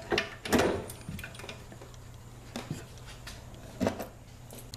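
A few separate knocks and clinks of tools and metal parts being handled, the loudest about half a second in and another near the end, over a steady low hum.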